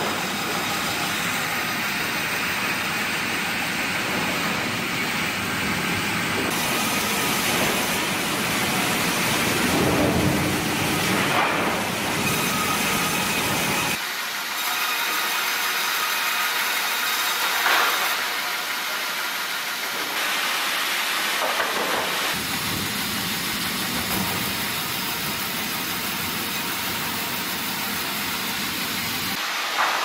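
Automatic sawmill multi-saw line running as a log is fed through its band and circular saws on a chain conveyor: a steady, hissing machine noise that swells louder a few times.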